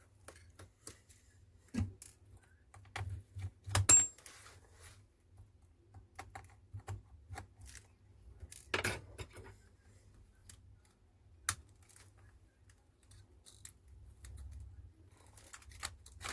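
Scattered small clicks and taps of a precision screwdriver, tiny screws and plastic phone parts being handled while a Huawei P smart 2019 is taken apart. There is a sharper click about four seconds in and a short scrape around nine seconds.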